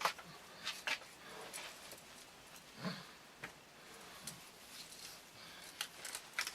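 Scattered light clicks and rustles from handling a small riveted plastic lighter holder while a piece of string is threaded through it, the sharpest click right at the start.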